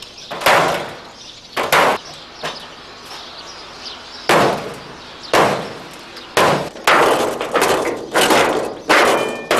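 A heavy steel blade chopping into a scrapped car's sheet-steel roof: about nine hacking blows, each a sharp metallic crunch that rings off briefly. The first two come about a second apart, then after a pause of a couple of seconds the blows come faster, roughly one a second.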